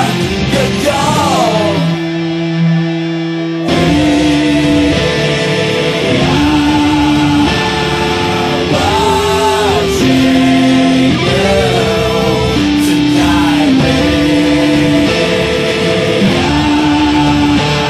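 Rock music with guitar and a sung or synth melody line; the low end and drums drop out briefly a couple of seconds in, then the full band returns.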